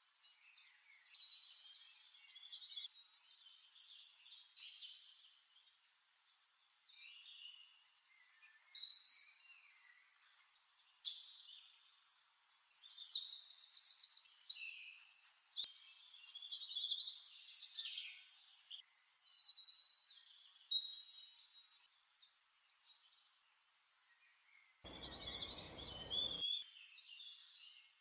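Several songbirds chirping and singing, a steady run of short high calls and trills. About 25 seconds in comes a short rush of noise lasting a second or two.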